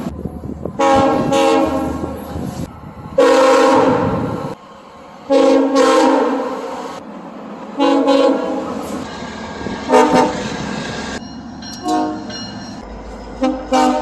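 Locomotive air horns from several different trains, each sounding a multi-note chord in about seven separate blasts of one to two seconds each. The sound changes abruptly from blast to blast, and a low train rumble runs under the first few blasts.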